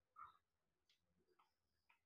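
Near silence, with a few faint short clicks and smacks from eating with the hands: the first just after the start, then smaller ones about a second in and near the end.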